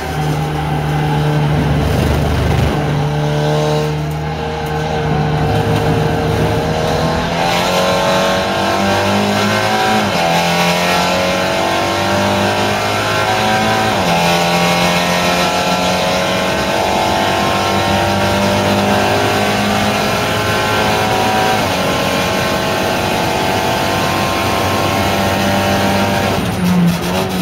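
SEAT Leon Supercopa race car's turbocharged four-cylinder engine heard from inside the cockpit, accelerating hard out of a corner with upshifts about ten and fourteen seconds in, then running at steady high revs. Road and wind noise run underneath.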